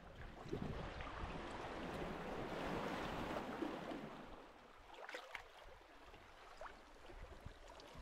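Sea surf washing on a sandy beach, with wind buffeting the microphone during the first half and a few faint clicks about five seconds in.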